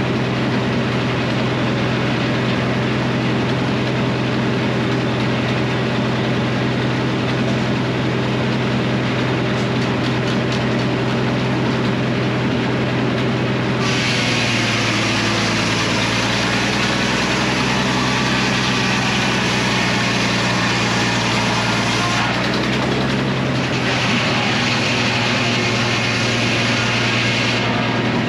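Engine driving a Frick circular sawmill, running steadily. About halfway through, the circular blade starts cutting through a maple log with a loud hiss and the engine note drops under load. The cut breaks off briefly, resumes, and ends shortly before the close.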